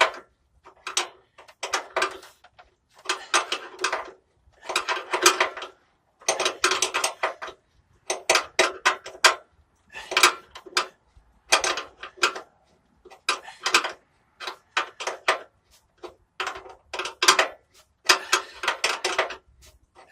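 Steel wrench turning a nut down a bolt, clicking and clinking in short bursts about every second and a half, stroke after stroke. The nut is being tightened to crush a rivet nut into a thin steel van frame.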